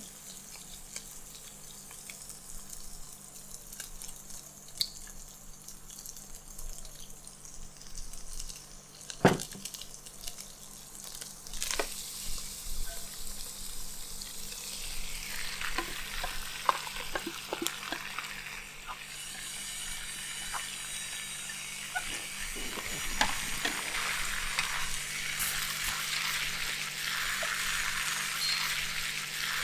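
Food frying in a pan for fried noodles with pork and cabbage, with utensil clicks and knocks as it is stirred; one sharp knock comes about nine seconds in. The sizzling is quiet at first and grows much louder from about halfway through, then stays steady.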